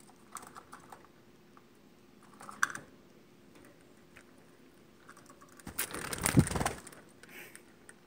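A budgerigar's beak tapping and nibbling at the phone: scattered light clicks, then a louder rough scraping rustle on the phone about six seconds in.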